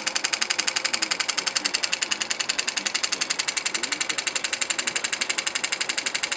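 Elmer's #8 Scotty model steam engine running steadily on compressed air: a rapid, even chuffing of air exhaust, many puffs a second.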